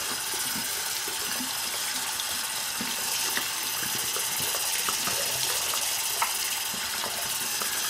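Bathroom sink faucet running steadily, water splashing over a plastic toy horse figurine being rinsed under the stream by hand, with small scattered knocks.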